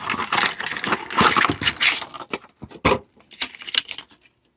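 Plastic toy packaging crinkling and crackling as it is torn open and a die-cast Hot Wheels monster truck is pulled out, with small clicks of plastic and metal. Busy for the first two seconds, then a few scattered clicks.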